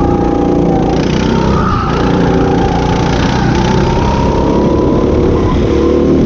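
Go-kart engine running hard, heard from on board; its pitch dips briefly about two seconds in, then climbs steadily as it accelerates.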